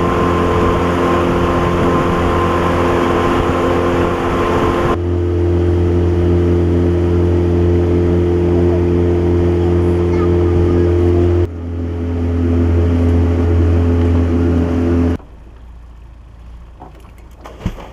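Boat engine running steadily with the boat under way, its tone changing abruptly twice; about 15 seconds in it stops and leaves much quieter wind and water noise.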